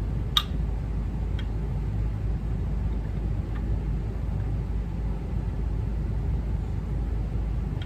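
Steady low background rumble, with a few light metallic clicks as Yamaha R3 shift forks are slid back and forth on their guide bar to check that they move freely.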